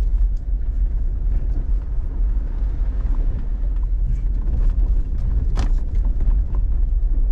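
Jeep Gladiator Rubicon driving slowly along a rough dirt trail: a steady low rumble of engine and tyres, with scattered clicks and knocks as it jolts over the ground, and one sharper knock a little past the middle.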